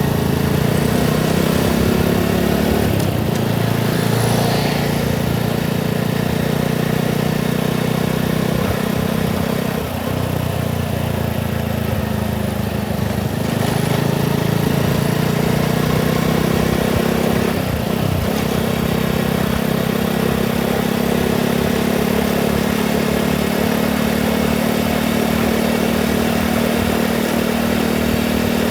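Motorcycle engine running steadily while riding, easing off briefly about ten seconds in and picking up again a few seconds later.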